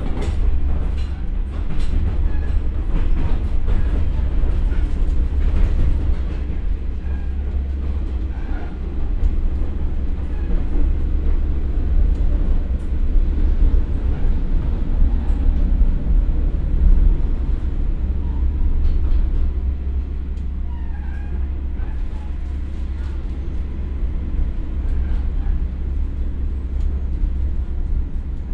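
Inside a KiHa 47 diesel railcar with a Komatsu engine, slowing to a stop: a steady low rumble of the engine and running gear, with sharp wheel clicks over rail joints in the first few seconds, growing a little quieter from about halfway as the speed falls.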